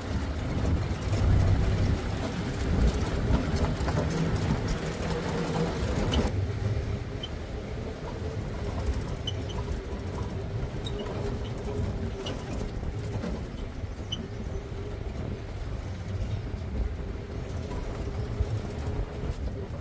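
A vehicle driving: engine drone and road rumble. A hiss over the top drops away suddenly about six seconds in, leaving a steady engine drone.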